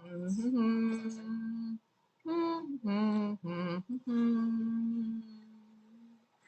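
A woman singing a slow tune without words. It rises into a long held note, breaks off briefly, then steps down through three short notes into a last long note that fades away.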